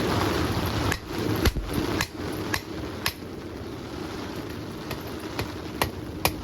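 Hammer blows on metal, about two a second for five strikes, then a few lighter taps near the end. A loud rushing noise cuts out about a second in, just as the blows begin.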